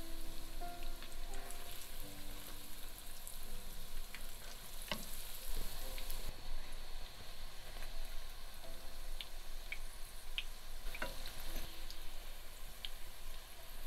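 Breaded potato rolls shallow-frying in vegetable oil, a steady sizzle and crackle of hot oil, with a few sharp clicks.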